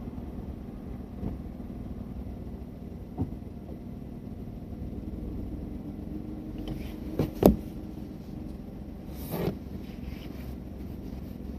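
Steady low rumble of a car's engine and tyres heard from inside the cabin while driving slowly in traffic, with two sharp knocks about seven seconds in.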